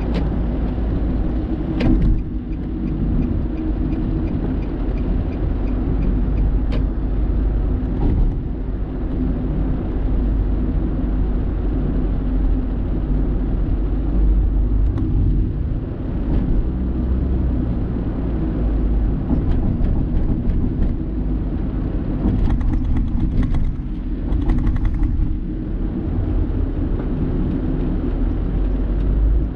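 A car driving along a highway, with a steady low rumble of tyres and engine. There is a sharp click about two seconds in and a brief crackling rattle a few seconds before the end.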